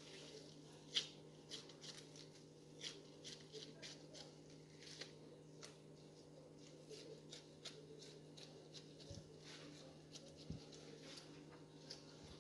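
Faint crinkling and rustling of disposable plastic gloves and a plastic sheet being handled, in irregular short crackles, the sharpest about a second in.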